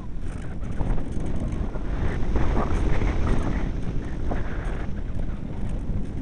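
Strong wind buffeting the microphone: a loud, deep rumble that rises and falls in uneven gusts.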